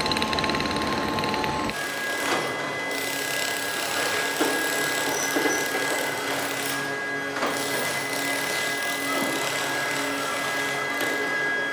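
Factory machinery running. About two seconds in the sound changes abruptly to a machine with a steady high whine over a low hum, with scattered clicks and knocks.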